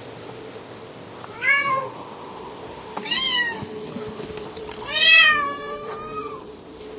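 Domestic cat meowing softly: three meows roughly a second and a half apart, the last one longer and drawn out, over a faint steady hum.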